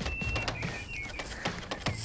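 Soft clicks and rustling of motocross goggles and gloves being handled, over a low steady rumble, with a few short high chirps in the first second.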